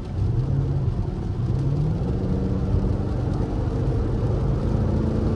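Fifth-generation Chevrolet Camaro SS's 6.2-litre V8 accelerating, heard from inside the cabin: the engine note climbs for the first two or three seconds, then holds steady.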